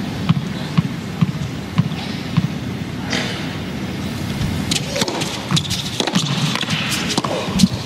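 A tennis ball bounced on a hard court before the serve, five thumps about half a second apart. A short rush of crowd noise follows, then the rally starts with sharp racket strikes on the ball over the steady hum of an indoor arena.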